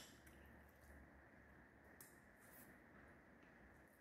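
Near silence: room tone with a low hum and a few faint, short clicks.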